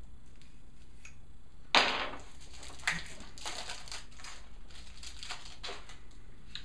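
Stack of cardboard game cards being leafed through in the hands: a sudden rustle about two seconds in, then a run of quick light flicks and slides as the cards are pushed past one another.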